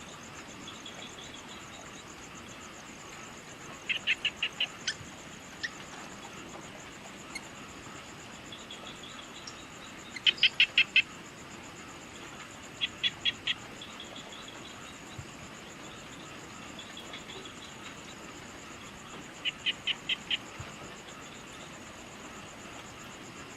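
A steady, high-pitched, fast-pulsing insect trill runs throughout over faint outdoor hiss. A bird breaks in four times with quick runs of five or six short, sharp notes, the loudest about ten seconds in, with softer calls in between.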